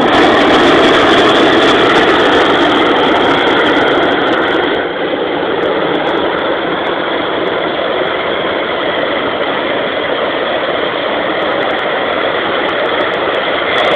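Hot air balloon's propane burner firing in one long steady blast, a little quieter after about five seconds.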